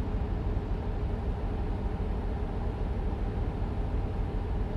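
Steady low rumbling noise with an even hiss over it, unchanging throughout.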